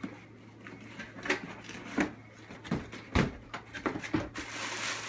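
Cardboard box being opened by hand: a string of cardboard knocks and thumps as the lid's tab is worked loose and the lid lifted, the loudest about three seconds in, then a rustle of plastic wrapping near the end as the lid comes off.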